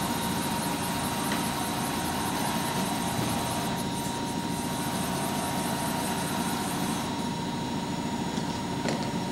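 Bridgeport VMC 800 CNC vertical machining center traversing its table along the X axis: a steady whir of the axis drive over the machine's running hum, with a thin steady tone. The higher part of the whir fades about seven seconds in.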